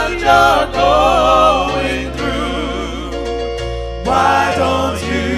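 Gospel song: sung vocals with a wavering vibrato over sustained chords and a bass line that moves from note to note.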